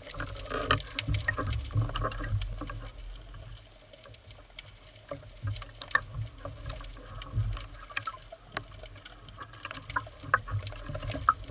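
Underwater sound picked up by a speargun-mounted camera in its waterproof housing: many scattered sharp clicks and crackles over an uneven low rumble of water moving against the housing.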